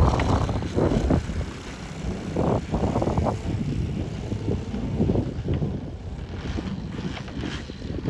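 Gusts of wind buffeting the microphone over the GP123 petrol engine, fitted with tuned exhausts, of a large RC Extra 330LX aerobatic plane idling as it taxis on grass. The gusts are loudest at the start and ease off after about two seconds.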